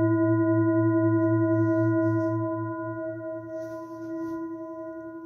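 Large hand-beaten singing bowl ringing, resting on the palm: a pulsing low hum with several steady higher overtones. The ring drops in level a couple of seconds in as the bowl is handled and lifted, with faint rustling from the handling.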